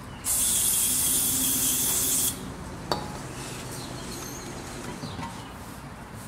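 Aerosol can of carburetor cleaner sprayed through its straw into an intake manifold's EGR port: one steady hiss of about two seconds that cuts off sharply. A single click follows, then the faint rub of a rag wiping the manifold.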